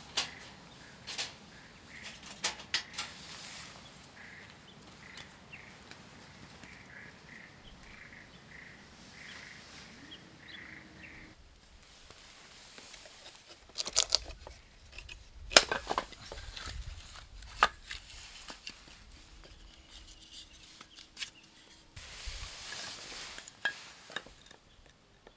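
Quiet kitchen work: scattered clicks and knocks of utensils and dishes being handled, with a busier cluster of knocks and low thumps past the middle. A faint, evenly repeated high note sounds through the first half.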